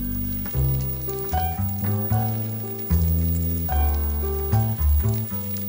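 Chicken breast sizzling as it is laid into hot butter and olive oil in a frying pan, under background jazz music with piano and a strong bass line.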